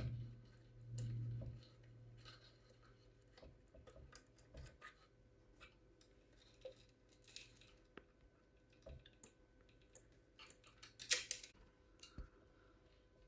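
Faint, scattered clicks and light rattling of a cuckoo clock's chain and small movement parts being handled as the chain is worked under its pulley gear, with a louder flurry of clicks about eleven seconds in.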